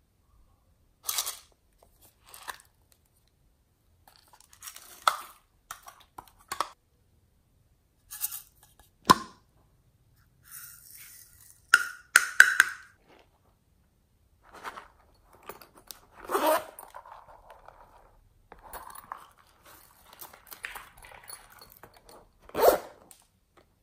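Plastic toys and containers handled by hand: irregular bursts of crunching, scraping and sharp plastic clicks, loudest near the end.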